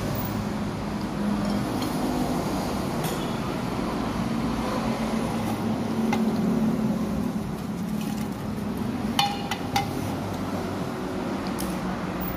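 Metal cutlery clinking against a dinner plate during a meal: a few light clicks, the clearest a pair of ringing clinks about nine seconds in, over a steady low background rumble.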